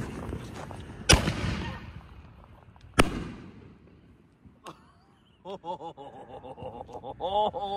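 Consumer aerial firework going off: a sharp launch bang about a second in with a fading crackle, then a second, equally loud bang about two seconds later as the shell bursts overhead. Excited voices follow in the last couple of seconds.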